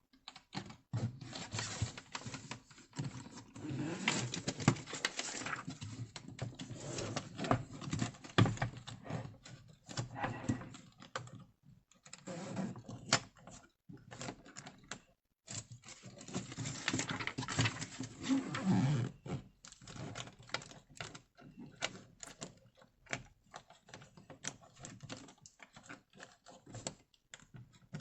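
Irregular clicking, tapping and scuffing, like hard plastic luggage being handled, with a few short pauses.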